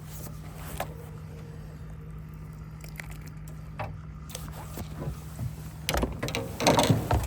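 Scattered clicks and knocks of gear being handled in a fishing boat, over a steady low hum; the knocking and clatter grow busier and louder in the last second or so.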